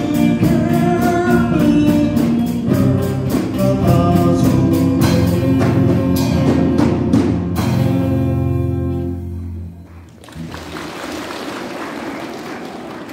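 Live church band (drum kit with a steady cymbal beat, bass guitar, acoustic guitar and a male lead singer) playing the last bars of a gospel song. About seven seconds in, the band stops on a final chord that rings out and fades away. An even, low room noise follows.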